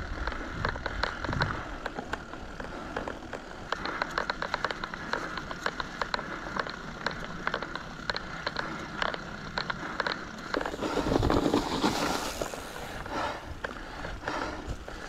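Mountain bike riding over a rough trail: the tyres crackle and scrape over gravel and stones, with a dense run of small clicks and rattles from the bike. A louder stretch of rushing noise comes about eleven seconds in.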